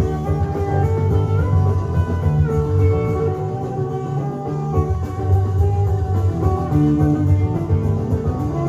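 Guitar-led music with a strong bass line, played through a repaired Marantz 2270 stereo receiver as a test.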